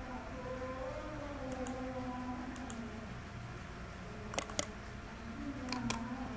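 Computer mouse clicks: a few faint single clicks, then two quick double-clicks about four and a half and six seconds in. Under them runs a faint background of wavering tones.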